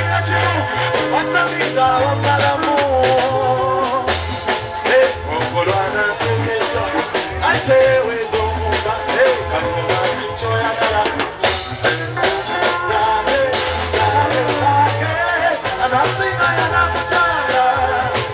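Live band music with a male lead singer: drum kit, bass guitar and electric guitar playing a steady, upbeat groove under the sung melody.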